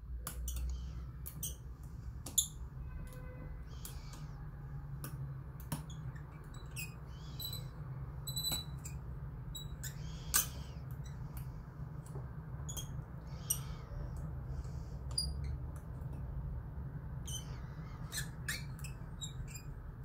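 Irregular small metallic clicks and ticks of a rotor lock pick working the pins of a Cisa Astral cylinder lock under very light tension. A steady low hum runs underneath.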